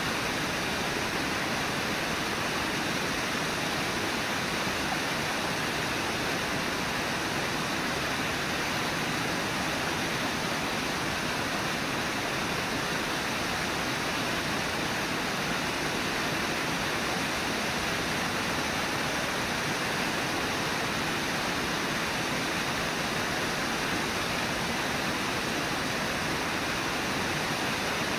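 Steady rushing of a river and its waterfall, an even roar of water with no breaks.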